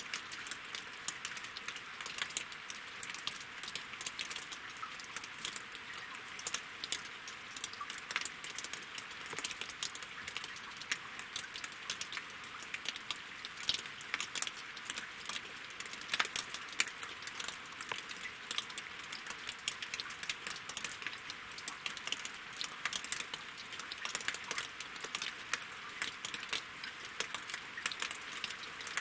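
Steady winter rain falling on a lake and on logs: an even hiss of drops with many small, sharp ticks.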